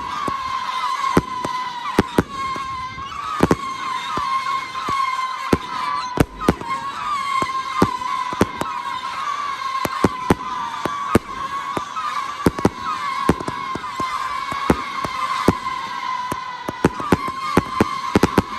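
Ghost and Goblins consumer firework going off: a continuous wavering whistle with sharp bangs and pops at irregular intervals, roughly two a second.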